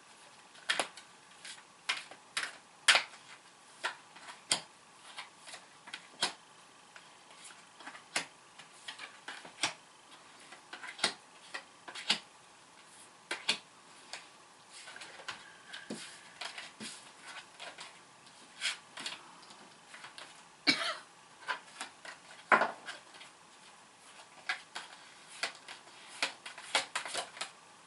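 Tarot cards being shuffled and handled: a long run of irregular sharp clicks and taps, a few louder slaps among them.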